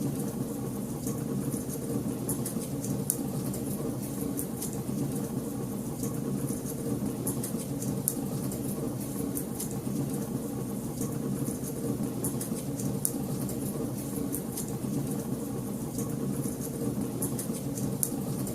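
Wood fire crackling in a fireplace: frequent small, irregular pops and snaps over a steady low rumble of the burning fire.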